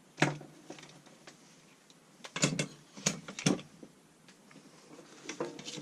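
A few sharp knocks and clunks of hard objects being handled and set down on a surface, one just after the start and three close together in the middle.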